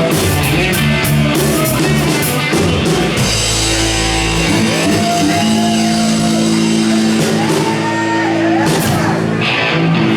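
Live country-rock band playing with electric guitar and singing. About three seconds in the beat drops out and long held notes ring on under the sung line.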